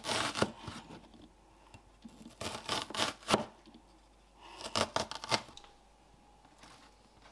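Broad-bladed kitchen knife slicing an onion on a wooden chopping board: crisp cuts through the onion with the blade knocking on the board, in three short runs with pauses between.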